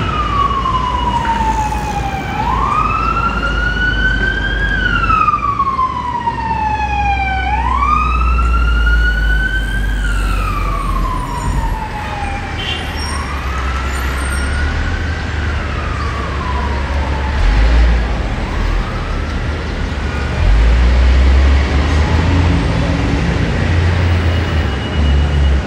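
Emergency vehicle siren wailing, its pitch sliding slowly up and down about every five seconds, fading away after about twenty seconds, over the low rumble of city street traffic.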